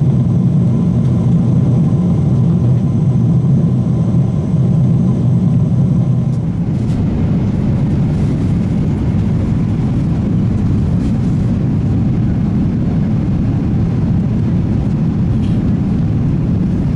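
Steady low rumble of a Boeing 777-200ER cabin in flight, the engine and airflow noise heard from an economy seat. It shifts slightly a little over six seconds in.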